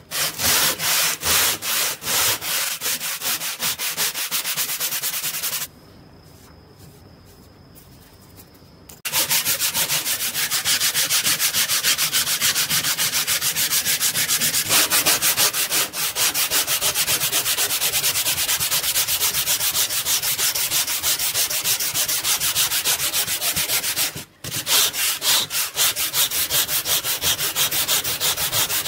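Sandpaper on a hand sanding block rubbed back and forth over a steel saw blade in quick, even strokes, several a second, scouring rust off the blade. The sanding stops for about three seconds about six seconds in, and breaks off again for a moment near the end.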